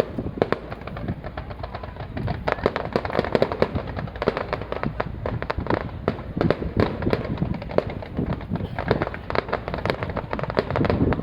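Fireworks display: a dense, continuous run of popping and crackling from bursting shells, with rumble underneath.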